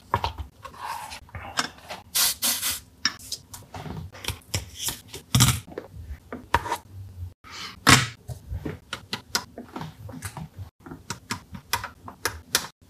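Irregular clicks, taps and rubbing from handling a circuit board and fitting a capacitor, its wire leads being worked through the board with a small hand tool. The sound breaks off for an instant twice.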